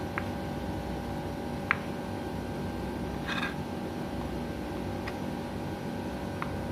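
Kitchen knife cutting a block of cheese on a wooden chopping board: a few faint, brief clicks of the blade against the board and a short scraping rustle about three seconds in, over a steady background hum.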